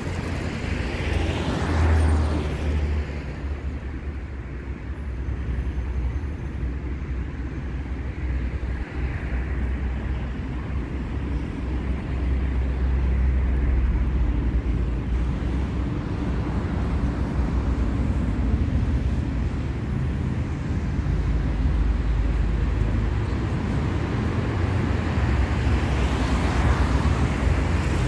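City street traffic: a steady low engine rumble, with a car passing by about two seconds in and another near the end.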